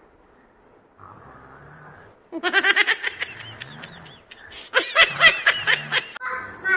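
Children's high-pitched laughter in two loud bursts of quick, repeated ha-ha pulses, the first a little past two seconds in and the second just before five seconds.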